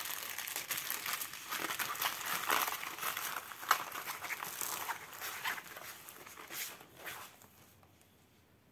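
A folded diamond painting canvas rustling and crinkling as it is handled and smoothed out, with a sharper crackle near the middle. The rustling dies away about seven seconds in.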